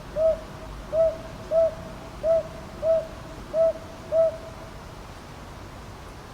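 Northern boobook (Ninox japonica) calling: seven soft, even hoots about two-thirds of a second apart, each rising and falling slightly in pitch. The series stops a little after four seconds.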